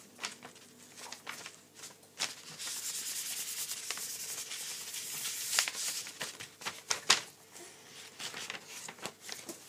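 Plastic-gloved hands rubbing and pressing a sheet of paper over a placenta to take a print. There is a scratchy rubbing, strongest through the middle, with a few sharp clicks.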